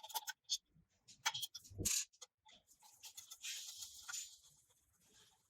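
Hand work on the face plate of a HIGHTEX 0797 walking-foot industrial sewing machine as it is taken off: scattered small metal clicks, one heavier knock about two seconds in, and a scraping rasp lasting about a second and a half from about three seconds in.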